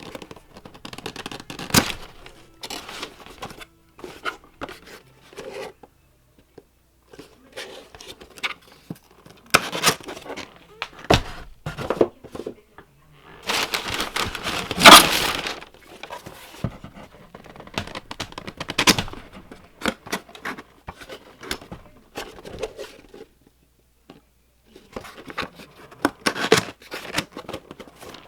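Packaging being handled and opened by hand: cardboard and plastic rustling, crinkling and tearing in irregular short bursts, with a longer, louder stretch of tearing about halfway through.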